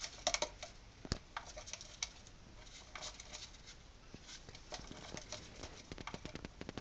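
A small parrot's claws clicking and tapping on a kitchen countertop as it walks about, in an irregular run of light, sharp taps.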